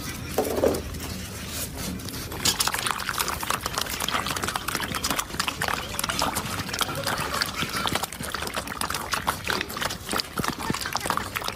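A litter of puppies eating from a shared bowl of soaked food: a dense, irregular patter of wet lapping, slurping and chewing clicks.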